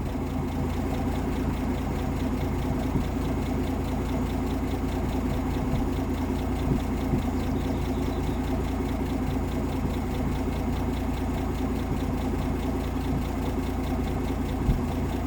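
1958 AMC Rambler Super engine idling steadily on a Weber carburettor while its idle screw is turned back up, being set for the steadiest idle after turning it down made the idle bounce. A few faint ticks are heard.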